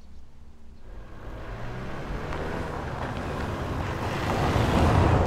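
Road vehicle noise that swells steadily louder, a rushing sound building from about a second in.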